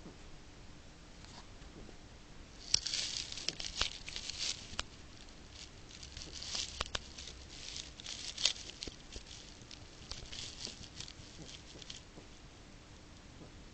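Hedgehog snoring: irregular groups of short, hissy snuffles with small clicks, starting about three seconds in and dying away shortly before the end.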